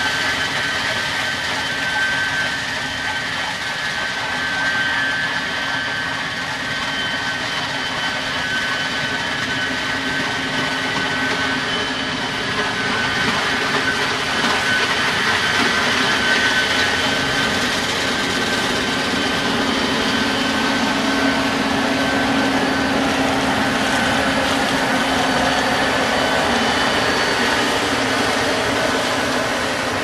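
Case IH combine running while cutting and threshing soybeans: a steady machine drone with a high whine over it, getting a little louder about halfway through as it comes close.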